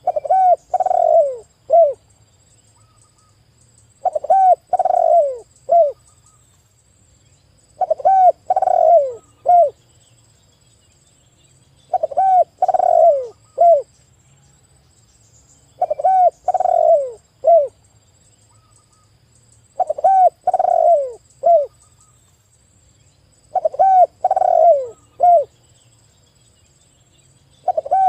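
Spotted dove (tekukur) cooing its loud song, the same short phrase of a few notes repeated about every four seconds.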